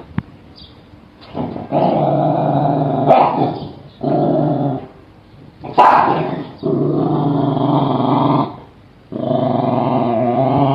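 Dog growling in four long, drawn-out growls with short breaks between them.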